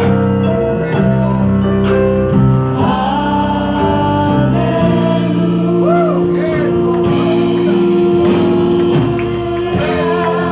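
Gospel worship music: a singing voice with vibrato over long held instrument chords.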